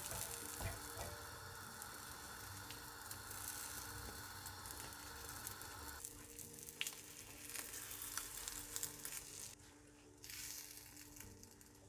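An egg and oyster mushroom omelette frying in a pan, with a faint, steady sizzle that grows quieter about halfway through.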